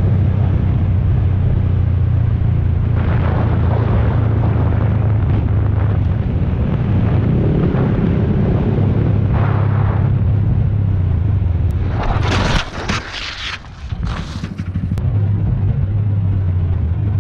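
Motorcycle engine running at a steady speed, heard through a helmet-mounted camera with wind rushing over the microphone. About twelve to fourteen seconds in the level dips twice and there are sharp hissy bursts of wind noise.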